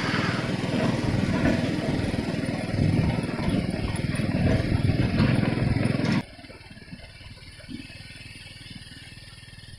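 Heavy machinery engine running loudly with some clatter. About six seconds in, the sound cuts off abruptly, leaving only a much fainter engine sound with a few light knocks.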